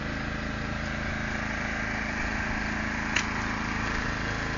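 A vehicle engine idling steadily, with one short sharp click about three seconds in.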